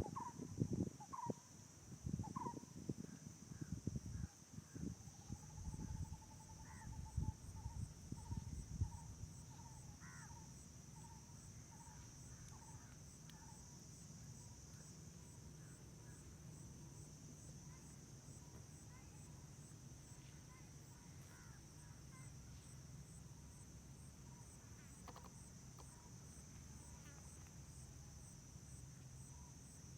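Faint wild outdoor ambience: insects chirring steadily throughout in a high, fast-pulsing trill, with short repeated bird calls in the first ten seconds. Low thumps and rumbles run through the first nine seconds, then stop.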